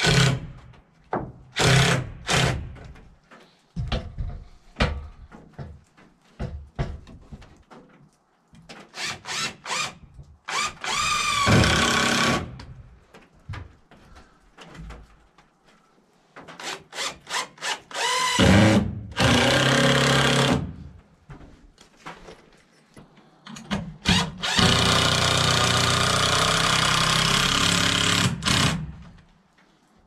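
Cordless drill driving screws into wooden rafters overhead. A few short trigger pulls come first, then longer runs: one spins up about ten seconds in, another comes a little past halfway, and the longest lasts about four seconds near the end.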